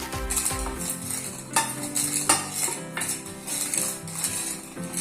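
A spoon stirring in a pot and clinking against its side now and then, over background music.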